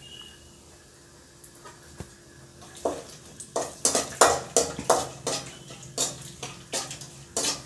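A perforated metal ladle scraping and clinking against a metal kadai, stirring cashews and whole spices in hot oil. The strokes start about three seconds in and come about three a second.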